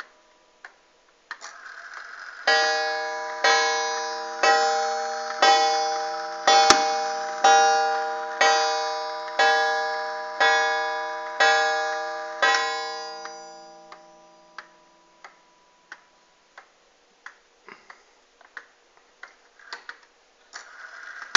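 An 1895 Ansonia Queen Anne wall clock strikes eleven on its gong, set off by turning the minute hand to the hour. It gives eleven ringing strokes about a second apart, each fading away. The pendulum ticks steadily before and after, about one and a half ticks a second.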